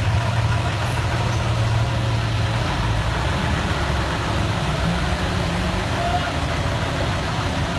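Vehicle engine running low under a steady hiss of rain and water.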